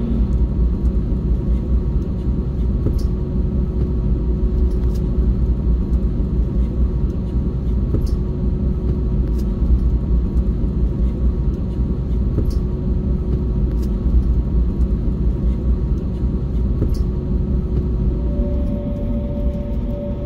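Steady low rumble of an Airbus A321neo heard from inside the passenger cabin, with a faint steady hum and a few faint scattered ticks. A second, higher hum joins near the end.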